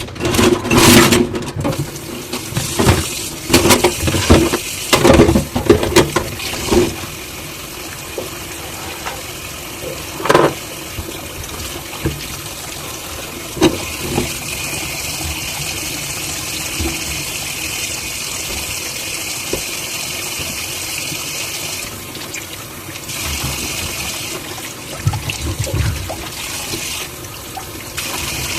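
Dishes clattering and knocking together in a sink for several seconds, then a kitchen tap running steadily into the sink, with a few single clinks now and then.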